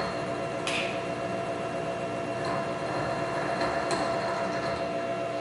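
Precision Matthews PM-935TV mill running, its high-speed steel end mill cutting a steel blank: a steady machine whine of several even tones with cutting noise, and two brief sharp high ticks, one about a second in and one near four seconds.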